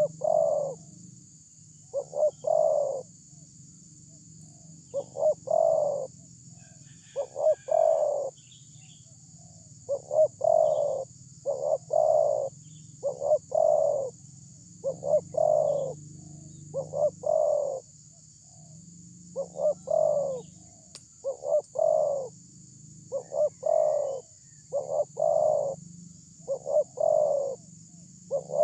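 Spotted dove cooing: its song phrase repeated over and over, about one every one to two seconds, each phrase made of two or three coos.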